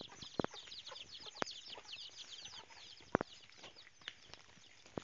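Birds chirping in many quick, high, falling chirps, thickest in the first couple of seconds and thinning out after. A few sharp clicks sound among them, the loudest about three seconds in.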